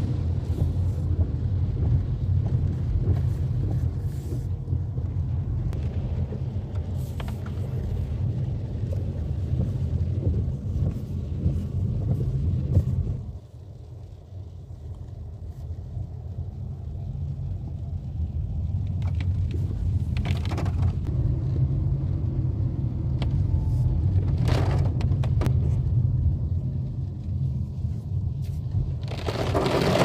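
Low rumble of a Dacia Duster driving in heavy rain, heard from inside the cabin, with scattered clicks. The rumble drops suddenly about halfway through and slowly builds again, and near the end a loud hiss of water striking the car comes in.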